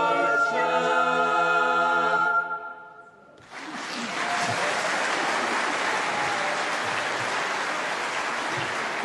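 A mixed a cappella choir holds the final chord of a Scottish Gaelic song and cuts off together about two and a half seconds in. After about a second of quiet hall reverberation, the audience breaks into steady applause.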